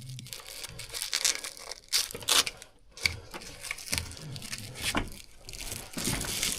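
Irregular crunching and rustling of someone moving over loose rock, with clothing brushing against the microphone.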